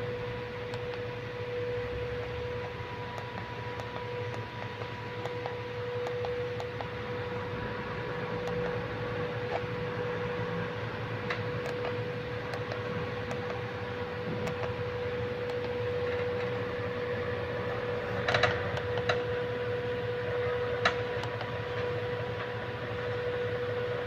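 Steady electrical-mechanical hum with a constant tone, broken by a few light clicks and a short cluster of sharper knocks about three quarters of the way through.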